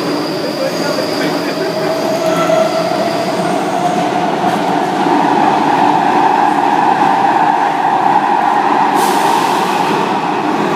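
Metro train running, heard from inside the car: the rumble of wheels on rail under a motor whine that rises slowly in pitch as the train gathers speed. A brief hiss comes about nine seconds in.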